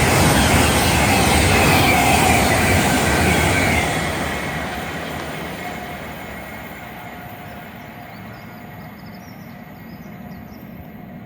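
A train passing the station, loud for about four seconds with a high tone falling in pitch, then fading away as it recedes.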